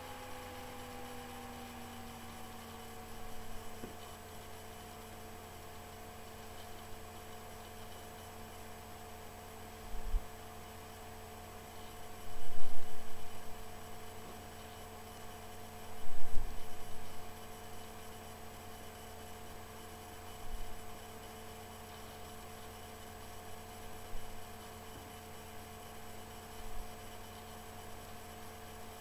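Steady electrical hum made of a few pitched tones that slide down slightly at the start and then hold, over faint hiss. Several short low bumps come through, the loudest two in the middle.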